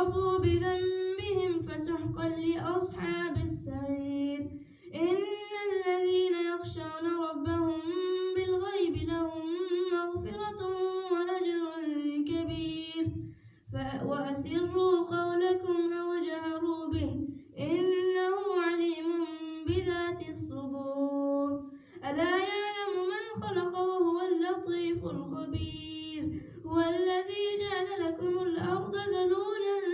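An imam chanting Quran verses aloud in Arabic during prayer, one voice in a melodic, drawn-out recitation style. The long phrases are broken by short pauses between verses, about four times.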